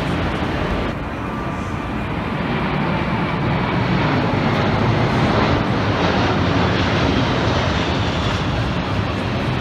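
Large four-engine military transport aircraft, led by a C-17 Globemaster, passing overhead in a flypast: a steady engine roar that builds over the first few seconds and then holds.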